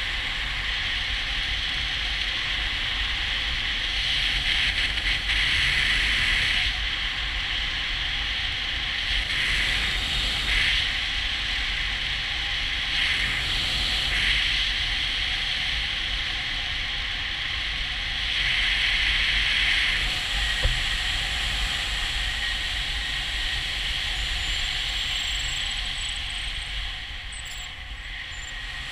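Steady rush of wind over a camera microphone in paramotor flight, swelling louder a few times.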